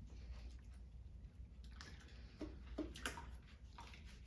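Faint wet handling sounds of shampoo being lathered between hands and worked into a wet puppy's coat, with a few soft clicks and squishes about two to three seconds in.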